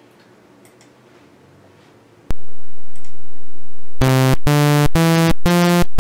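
Software synthesizer's sawtooth oscillator, the fast approximation computed with a mod function, playing four short notes that step upward in pitch, starting about four seconds in. The tone is buzzy and bright, dense with harmonics. A single sharp click comes about two seconds in.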